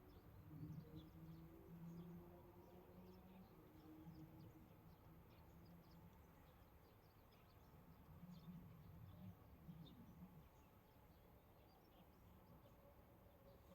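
Near silence: faint outdoor background with scattered faint high chirps, like distant birds or insects, and a faint low murmur twice.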